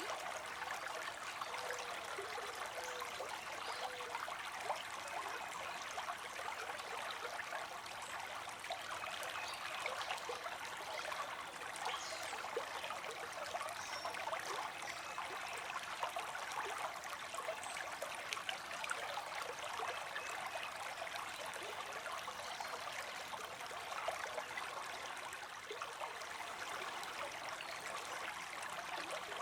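Shallow creek water running and trickling steadily over stones, a continuous babble with small splashes throughout.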